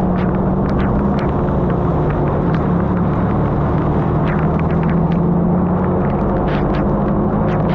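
A car's engine hum while driving, steady with a slight shift in pitch, with scattered sharp ticks of raindrops striking the car.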